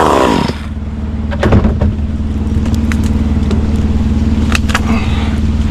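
Two-stroke chainsaw coming off full throttle and falling in pitch to a steady idle, with a few sharp knocks or cracks, the loudest about a second and a half in.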